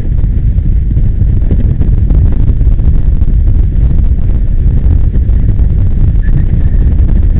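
Wind buffeting the microphone of a camera mounted on a moving electric go-kart: a loud, steady low rumble with no engine note. A faint high whine comes in about six seconds in.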